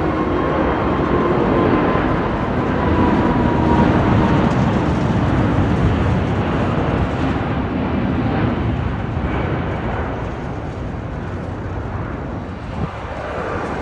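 Jet airliner engines at take-off power: a steady, loud rush of engine noise with a faint high tone sliding slowly down in pitch over the first few seconds, easing off a little near the end.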